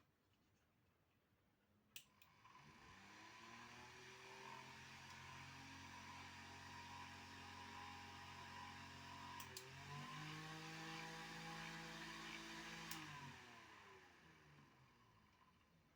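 AVS-8048 12-volt car fan with 8-inch blades, quietly whirring. About two seconds in, a click switches it on and it spins up to a steady speed. Midway, a double click switches it to its higher speed and the pitch steps up; a click near the end switches it off and it winds down to a stop.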